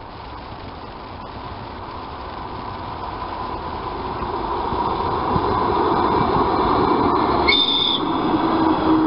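ER2T electric multiple unit approaching and running past, its running noise growing steadily louder over a faint steady whine. About three quarters of the way in comes a brief high-pitched tone lasting half a second. As the train draws level, a lower whine slowly falls in pitch.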